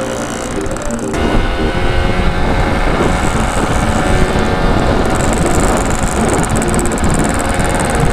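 Yamaha RX-King's 135cc two-stroke single running at riding speed with wind rush, heard from the handlebars while riding in a group of motorcycles. Background music cuts out about a second in, leaving the engine and wind.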